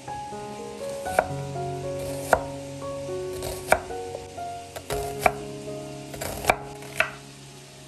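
A chef's knife slicing a peeled white onion on a wooden cutting board, each cut ending in a sharp knock of the blade on the board, about seven cuts at roughly one a second.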